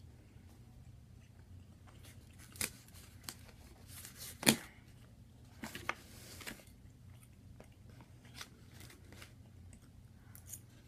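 Eating sounds: steak being chewed, with scattered sharp clicks and taps of a fork against a paper plate, the loudest about halfway through. A low steady hum runs underneath.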